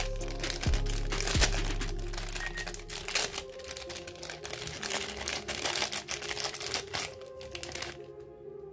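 Foil and clear plastic toy packaging crinkling and crackling as it is unwrapped by hand, a dense run of sharp crackles that stops about eight seconds in. Background music plays underneath.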